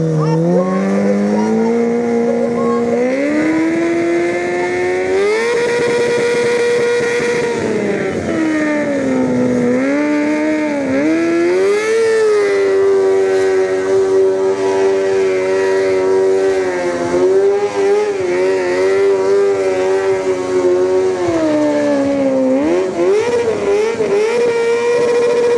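Sport-bike engine held at high revs during a stationary rear-tyre burnout. The revs climb over the first few seconds, dip and recover twice, and stay high in between while the rear tyre spins on the asphalt.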